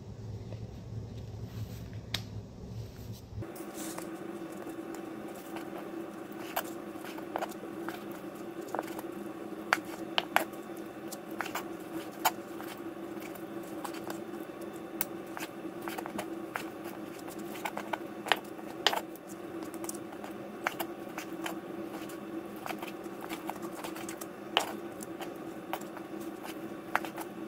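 Kitchen prep handling sounds: scattered clicks and light knocks of utensils and seasoning containers over a steady hum.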